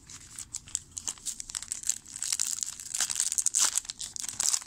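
A trading-card pack wrapper being crinkled and torn open by hand. Sharp crackles are sparse at first and grow denser and louder about halfway through.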